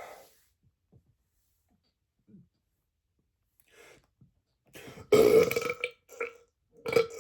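A man belching: after a few seconds of near quiet, one long, loud belch about five seconds in, then a short one, and another starting near the end.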